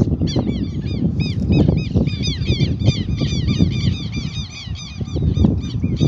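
A flock of birds calling: many short, arched chirps, several a second and overlapping, over a steady low rumble.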